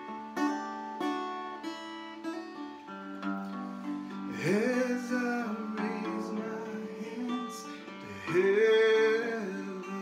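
Guitar playing a steady pattern of chords while a man sings; the voice comes in about four seconds in, and near the end a loud sung note is held.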